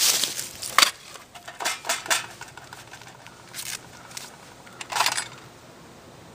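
Steel Allen wrenches clinking and rattling in a metal tin as they are set down and sorted through: a series of irregular sharp clinks mixed with short rustles.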